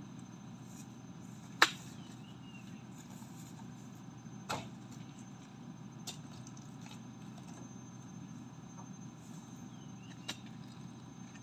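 Four sharp, brief knocks over a steady low background, the loudest about one and a half seconds in and the others near the middle and near the end. They come from oil palm fruit bunches being struck with a metal spike and handled onto a pickup's loaded bed.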